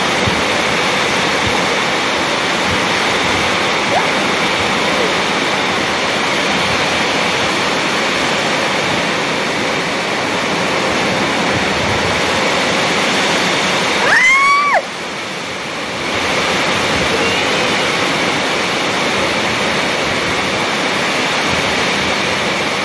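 Heavy rain pouring down on an open patio, a steady, loud rushing hiss. About two-thirds of the way through, a short rising high-pitched sound cuts in, and the rain then sounds quieter for about a second.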